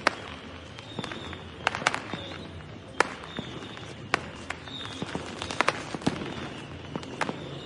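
Fireworks going off: scattered sharp bangs and cracks at irregular intervals, the loudest about three seconds in, over a steady background rumble.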